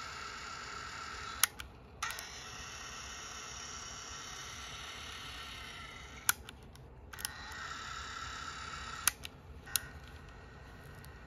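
Sony WM-F102 Walkman cassette transport running with no cassette loaded: a steady motor whir with a high whine. Sharp clicks of the transport engaging and releasing stop it and start it again three times.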